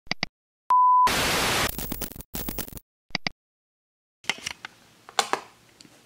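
Intro sound effect for a CCTV-style title card: two short blips, a steady electronic beep, then a loud burst of TV-style static that breaks up, cuts out, and is followed by two more blips. From about four seconds in there is faint room tone with a few soft clicks and knocks.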